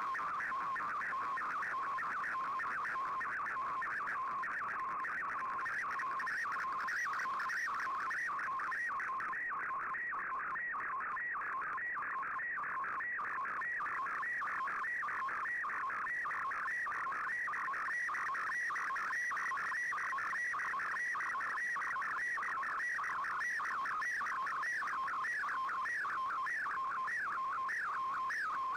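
Slow-scan television (SSTV) image signal received over shortwave radio: rapidly warbling tones between about 1 and 2 kHz over a steady low tone, repeating in a regular beat line after line as a picture is sent.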